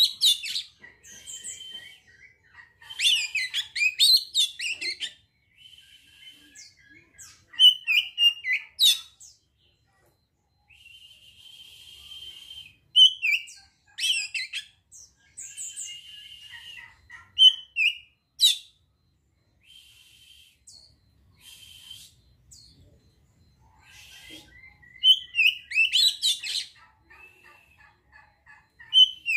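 Oriental magpie-robin singing: short bursts of varied, quick whistles and chatters, several drawn-out harsh buzzy notes between them, and brief pauses between phrases.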